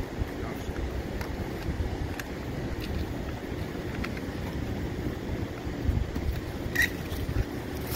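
Wind rumbling and buffeting on the microphone, with a few faint clicks from the hose couplings being handled and a sharper click near the end.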